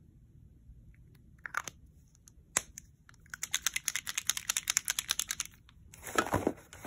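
Hands rummaging in a cardboard box of marker and spray-paint supplies. A sharp click comes about two and a half seconds in, then a couple of seconds of fast, crinkly rustling and clicking of packaging, and a few louder knocks near the end as items are handled.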